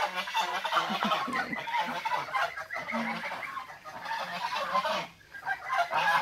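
Young geese calling and honking in a continuous chatter, dropping away briefly about five seconds in.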